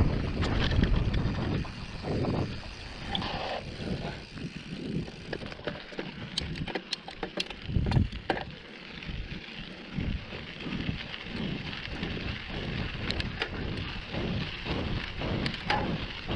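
Mountain bike ridden over a rough dirt trail: tyre noise with sharp clicks and rattles from the bike, and wind buffeting the microphone in uneven gusts.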